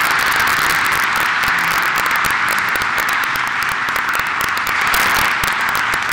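Congregation applauding, a steady wash of many hands clapping.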